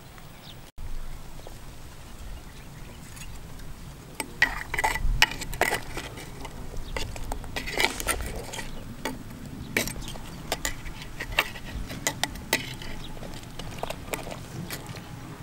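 Metal ladle stirring in an earthenware clay pot of soup, knocking and scraping against the pot in a string of irregular clinks that start about four seconds in.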